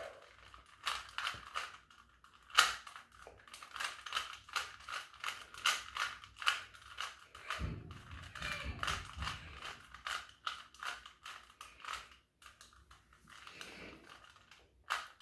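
Plastic Rubik's cube being turned quickly during a speed solve: an irregular run of sharp clicks and clacks, several a second, with a brief low rumble of handling noise about eight seconds in.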